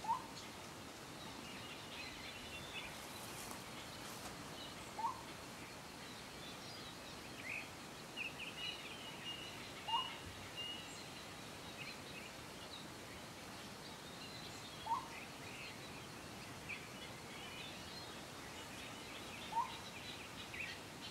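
Blue-throated Motmot (Aspatha gularis) giving a short call five times, about every five seconds, each one rising slightly in pitch. Fainter, higher chirps of other birds sound between the calls.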